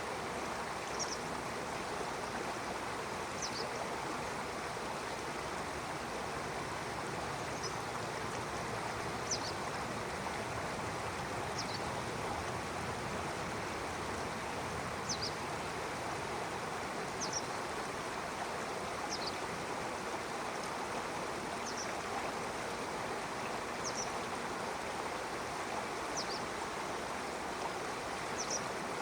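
Stream water rushing and lapping steadily. A bird gives a short, high, falling chirp about every two seconds.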